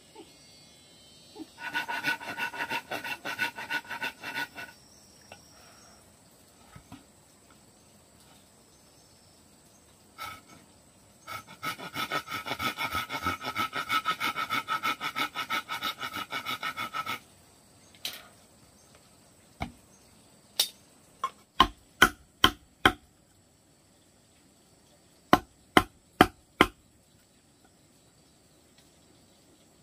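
A handsaw cutting through a hollow bamboo log in quick strokes with a ringing tone, in two spells. Then a wooden mallet striking a chisel to cut a hole in the bamboo: sharp knocks in groups of four or five.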